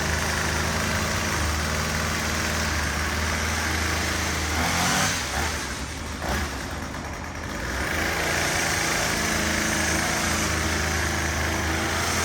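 Gasoline lawn mower engine running steadily, quieter for a few seconds in the middle before coming back up.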